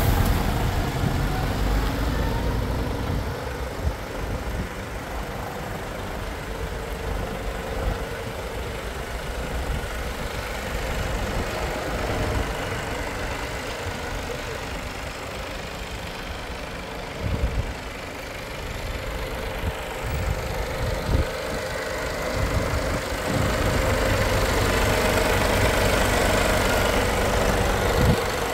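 Mercedes-Benz Actros 1843 truck's 12.8-litre straight-six diesel idling steadily, with a few brief knocks along the way.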